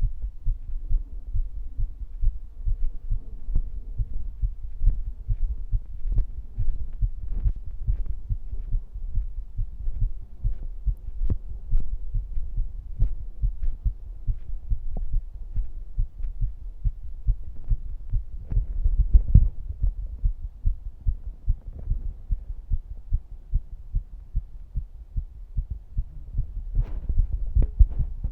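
A person's heartbeat recorded up close during physical activity: a continuous run of low, quick thumps. There are a few louder knocks about two-thirds of the way through and again near the end.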